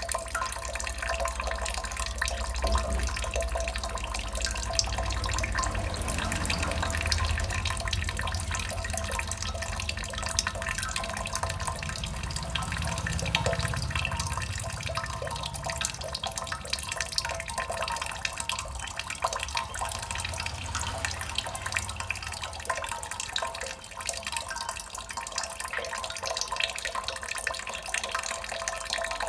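Water drops falling and splashing continuously, many small drips landing in quick succession over a steady trickling wash.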